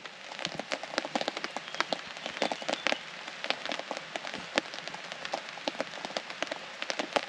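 Rain falling on a tarp overhead: a dense, irregular patter of drops with some louder hits.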